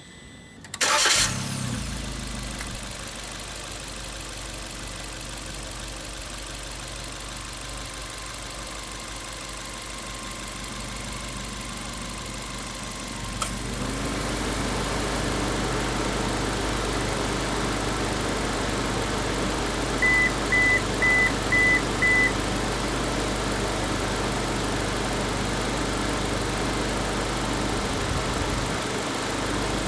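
Suzuki Jimny Sierra JB74 engine starting about a second in, then idling steadily. About halfway a click, and the running grows louder, as the air conditioning comes on without the loud squawk this model can give at its first A/C start after standing a day or more. Five quick electronic beeps about two-thirds of the way through.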